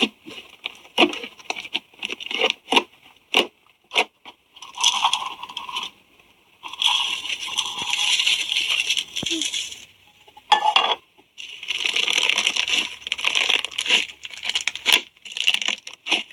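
Slime being poked and squished: a quick run of sharp clicks and pops, then longer stretches of crackling and crunching with short breaks between them.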